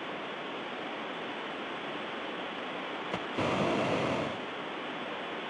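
Steady hiss of static on a live broadcast audio feed during a signal dropout, swelling louder for about a second around the middle.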